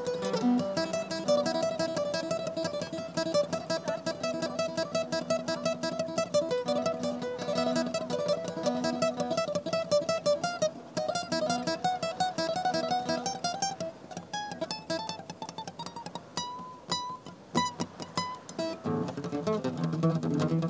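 Acoustic guitar playing a quickly picked melody of single notes, with no singing. Near the end it moves into fuller, louder strummed chords.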